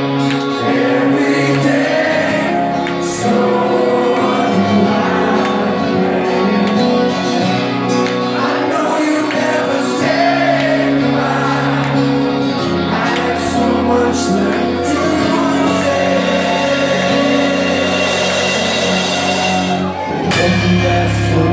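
Live rock band playing, with a male lead singer singing over guitars; a deep low note comes in near the end.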